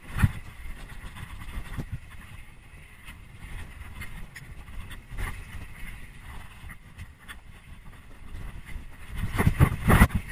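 Trek Remedy 8 full-suspension mountain bike descending a rough dirt and gravel trail at speed: steady wind on the microphone and tyre rumble over the dirt, with scattered rattles and knocks from the bike over bumps. One sharp knock right at the start and a cluster of loud jolts about nine seconds in as it hits rougher ground.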